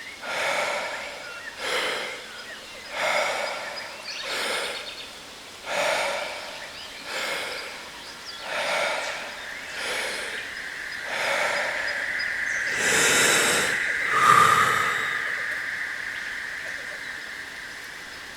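Wim Hof power breathing: deep rhythmic breaths, a full breath in and out about every one and a half seconds, ending in one long final breath with a sharp exhale about 14 seconds in. A steady ringing tone comes in about 11 seconds in and slowly fades, over a steady waterfall hiss.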